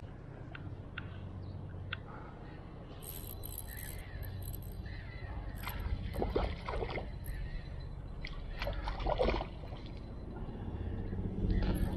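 Water splashing and sloshing in short bursts, about three times, from a hooked bream being played at the surface on an ultralight rod, over a low steady rumble.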